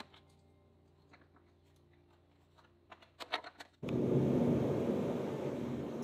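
A few light clicks and taps, then about four seconds in a shop heater's steady blowing noise cuts in abruptly and becomes the loudest sound.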